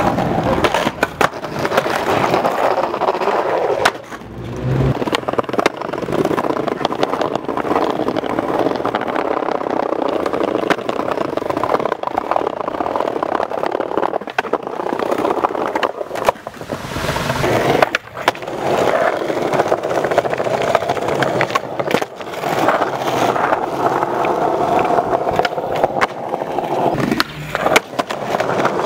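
Skateboard wheels rolling over stone paving, broken by many sharp clacks of the board popping and landing.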